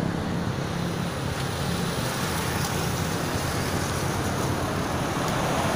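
Steady road traffic noise from a busy highway: a continuous rush of passing cars, motorcycles and trucks with a low engine hum underneath.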